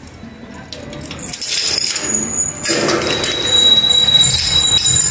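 Metal front gate being unlatched and pulled open: clinks and rattles that grow louder about halfway through, with a thin high steady squeal in the second half.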